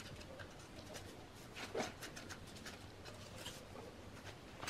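Faint scraping and rustling as paper egg-carton pulp is picked and scraped off a cast cement plant pot with a small pointed tool, in irregular small strokes with one louder scrape about two seconds in.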